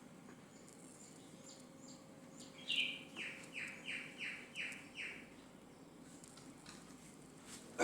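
A bird calling: one higher note, then a quick run of about six short chirps, each sliding down in pitch, about three a second.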